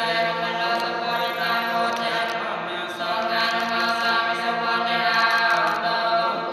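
A Buddhist monk chanting a blessing in a steady, near-monotone voice held on one low pitch, with a short break for breath about three seconds in.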